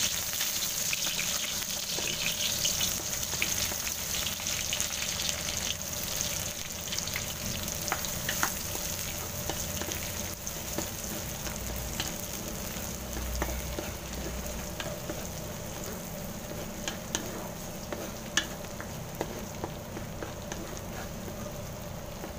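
Sliced red onions sizzling in hot oil in a wok, stirred with a wooden spatula that clicks and scrapes against the pan now and then. The sizzle eases slightly toward the end.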